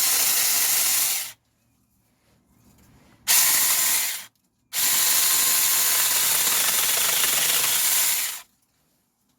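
Saker 20-volt mini cordless electric chainsaw running in three bursts as it cuts through small branches: about a second at first, a short burst around three seconds in, then a longer run of nearly four seconds that cuts off sharply.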